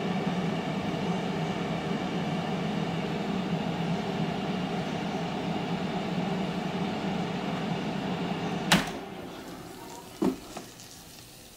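Power XL air fryer running with a steady fan hum. About nine seconds in a sharp click comes and the hum dies away as the fan stops, then a clunk as the basket drawer is pulled out.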